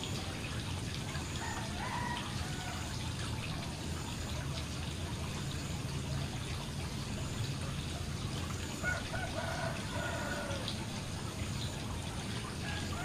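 Water pouring from a fountain spout into a koi pond, a steady splashing. A short pitched call sounds twice, about two seconds in and again around nine to ten seconds, the second one longer and falling in pitch at the end.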